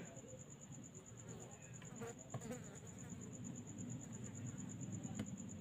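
A cricket's high, steady pulsing trill, about ten pulses a second, over a faint low hum.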